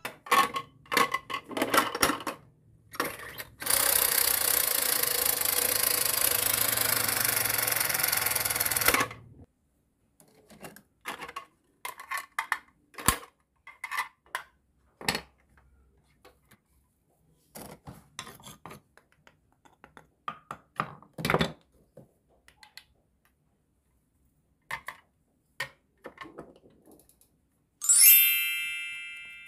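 Small plastic toy kitchen pieces being handled, clicking and clacking. A steady hiss runs from about four to nine seconds in, and a ringing chime sounds near the end and fades.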